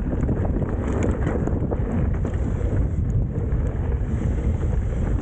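Wind buffeting the microphone of a camera on a mountain biker riding down a dirt trail at speed, with a constant low rumble and rapid little knocks and rattles from the bike going over the ground.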